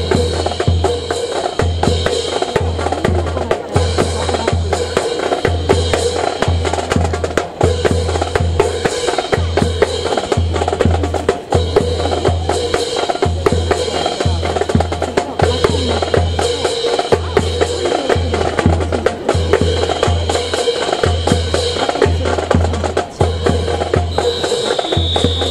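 Military band playing a march with a steady bass drum beat about twice a second, mixed with sharp wooden clacks of rifles being handled in a rifle drill.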